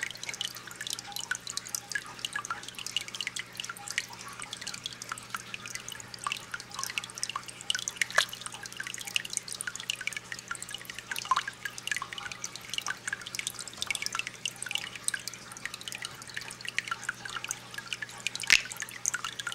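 A porcupinefish's sound: many rapid, irregular little clicks and a few brief squeaks, mixed with water dripping, over a steady low hum.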